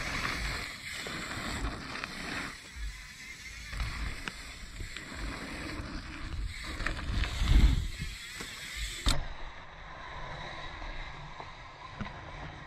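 Wind buffeting an outdoor camera microphone: a hiss with uneven low thumps, the strongest about seven and a half seconds in. The sound turns duller suddenly about nine seconds in.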